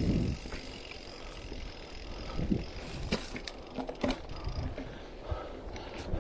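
Giant Trance mountain bike ridden over a dirt trail: a steady tyre rumble with scattered knocks and light metallic rattles as it goes over bumps, the loudest knock at the start.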